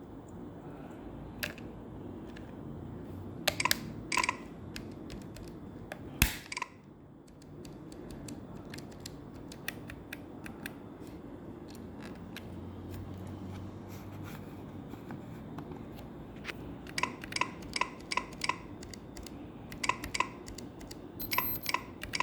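Keystrokes on a Keychron K7 low-profile keyboard with Gateron red switches: a few single presses, then a run of quick presses near the end, each click with a short ringing note, over a steady low hum.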